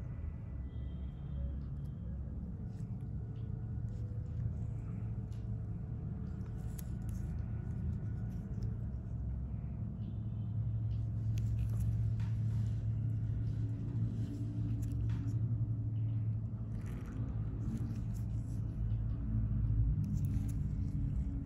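A low steady rumbling hum that swells slightly partway through, with faint scattered clicks and ticks above it.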